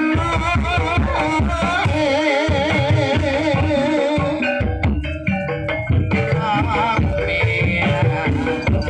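Live ebeg dance accompaniment in Javanese campursari style. Hand drums keep up a dense, driving rhythm under a gamelan ensemble, and a melody line wavers with strong vibrato over the top.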